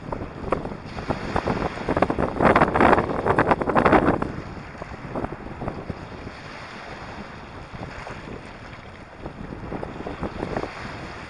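Small sea waves washing over a stony beach. One wave surges in louder from about two seconds in, with a rush of many small clicks, then eases to a softer wash.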